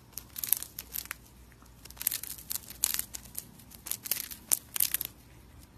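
A hamster crunching and nibbling a crisp pink wafer biscuit up close: quick, irregular crisp crackles of small bites, with a brief pause about a second and a half in.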